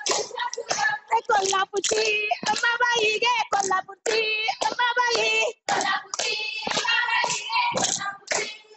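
Women singing a Goan fugdi folk song, the voices in quick, high phrases, with sharp hand claps mixed in.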